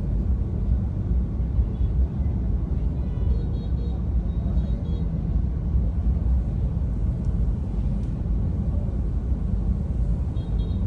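Steady low rumble of a car crawling in slow traffic, heard from inside the cabin.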